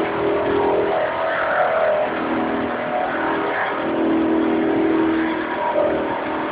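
Car doing a burnout: the engine is held at high revs while the tyres spin in thick smoke. The engine note dips and climbs again a couple of times.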